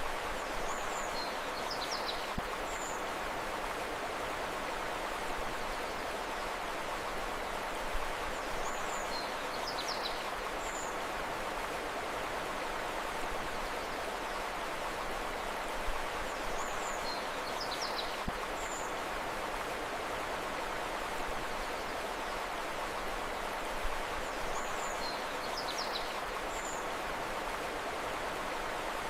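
Steady rushing of flowing river water, with a short cluster of high bird chirps about every eight seconds, the same chirps recurring each time.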